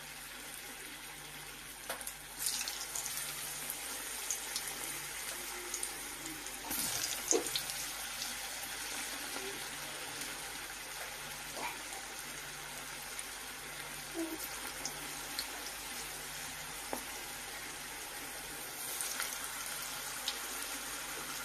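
Vegetable manchurian balls deep-frying in medium-hot oil: a steady sizzling hiss, with louder spells of crackling a few seconds in, around seven seconds in and near the end.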